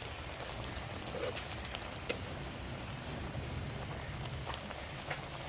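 Onion and ginger-garlic masala frying in a pan on a wood-fired chullah: a steady sizzle with scattered sharp crackles.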